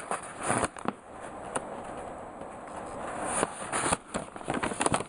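Handling noise: an irregular rustle broken by several sharp clicks and crackles, as something is moved and handled close to the microphone.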